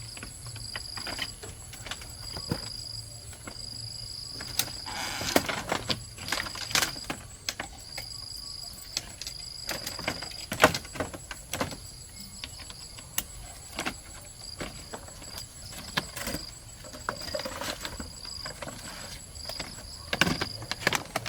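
Irregular clicks, knocks and rustles of someone moving about and handling things, the loudest a sharp knock about ten seconds in. Behind them, insects keep up a steady high chirring with short breaks.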